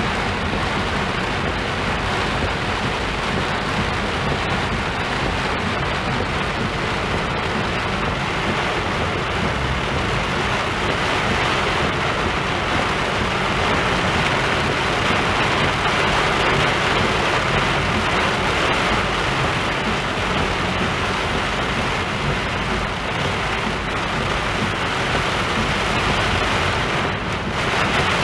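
Torrential rain beating down on a moving car, with the rush of driving on a flooded road. The downpour swells louder about halfway through.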